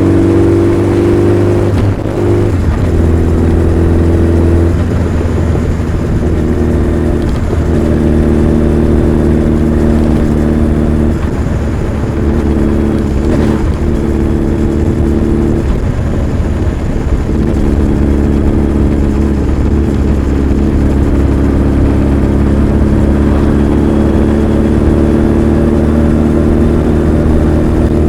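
Honda CB1300 Super Bol d'Or's inline-four engine and exhaust running steadily, the note shifting a little up and down several times.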